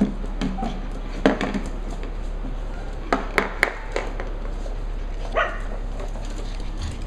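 Cavalier King Charles spaniel puppies giving a few short, high barks and yips while playing, three of them in quick succession about three seconds in.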